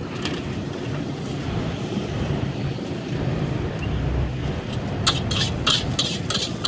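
Metal spatula scraping and clanking against a steel wok as fried rice is stirred: a quick run of strokes starting about five seconds in, over the steady rumble of street traffic.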